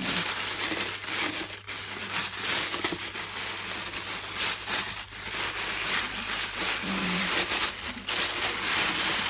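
Packaging crinkling and rustling as it is handled and pulled open by hand, with a dense run of small crackles.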